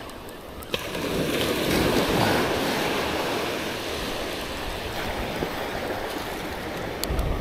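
Surf breaking and washing up a beach: a steady rush of waves that swells about two seconds in.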